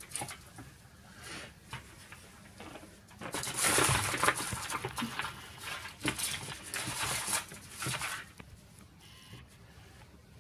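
Crinkly wrapping rustling and crackling as it is handled, loudest from about three to eight seconds in. A few light taps come just before.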